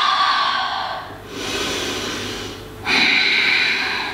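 A woman breathing deeply and audibly, three long breaths with the first and last louder: she is catching her breath after high-intensity jumping lunges.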